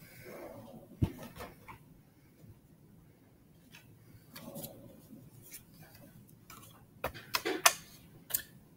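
Scattered sharp clicks and knocks of small objects being handled in a quiet room, with a brief faint voice now and then; a quick cluster of louder knocks comes near the end.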